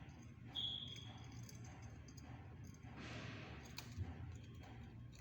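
Young dove, about a month old, giving one thin, high, slightly falling whistled peep about half a second in: its baby voice. Later comes a short rustle and a sharp click.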